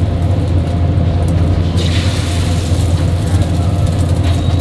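Busy market-stall ambience: a steady low machine hum with a noisy wash over it and voices in the background.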